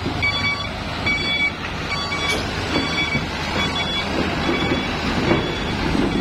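Truck reversing alarm beeping about once a second over the running truck engine. The beeps fade about two-thirds of the way through while the engine grows louder.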